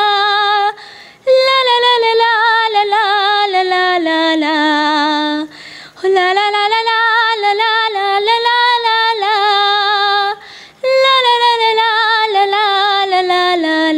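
A young woman singing unaccompanied in a high voice, a wordless 'la la la' melody. It comes in three phrases, each sinking lower in pitch and broken by a short breath, with vibrato on the held notes.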